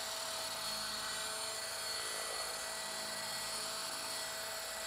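Roban EC130 800-size electric RC helicopter hovering, with a steady whine from its motor and fenestron tail rotor over the rotor noise.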